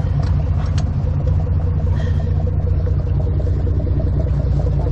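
Charter fishing boat's engine running, a steady low rumble.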